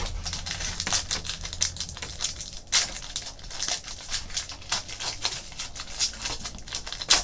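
Foil trading-card pack being handled and torn open: a fast run of crisp crinkles and crackles, with louder ones about three seconds in and near the end.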